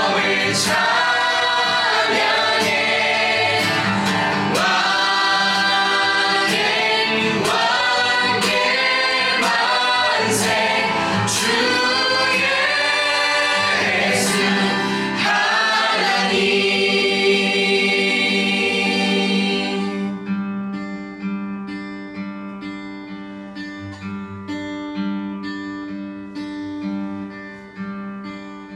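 Worship band music with group singing. About halfway through the voices stop and the instruments hold on, with guitar, and the music fades out toward the end.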